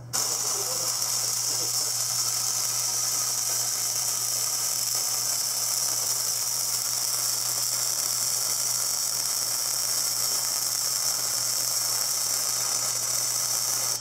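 Electric arc welding on a steel sprayer wheel: the arc's steady, even hiss, which starts and cuts off abruptly, over a constant low hum.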